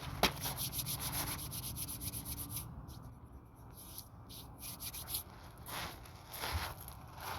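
Hands rubbing in climbing chalk: a quick run of dry rubbing strokes for the first couple of seconds, with a sharp tap just after the start, then a few slower strokes.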